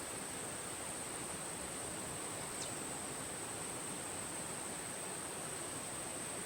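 Steady outdoor background hiss with a constant thin high-pitched whine, and a brief faint falling chirp a little over two and a half seconds in.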